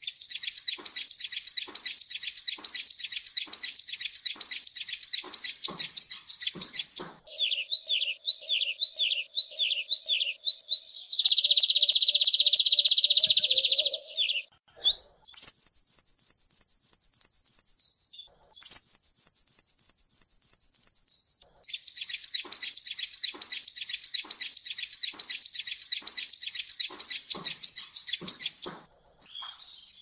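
Copper-throated sunbird (kolibri ninja) song: a string of rapid high trills broken by short pauses, with a run of sharp down-slurred notes and a buzzy stretch before the middle. The highest and fastest trills come about half way through, followed by a return to the lower trill.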